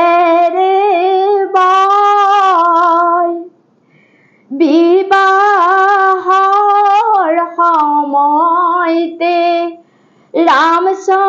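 A woman sings an Assamese biyanaam, a traditional wedding song for the bride, solo and unaccompanied. She holds long, wavering notes in phrases broken by two short pauses, about three and a half seconds in and near the end.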